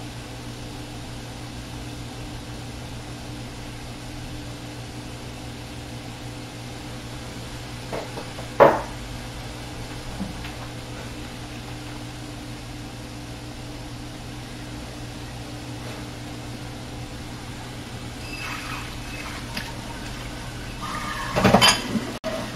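Steady hum of a kitchen appliance fan. A single sharp knock comes about a third of the way in, and a short run of clattering and scraping near the end as kitchen utensils are handled at the cutting board.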